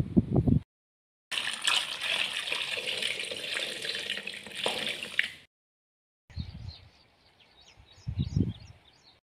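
Tap water pouring into a metal bowl of water with vegetables in it, splashing steadily for about four seconds and then cutting off abruptly. Later, wind rumbles on the microphone under a run of faint, high, quick chirps.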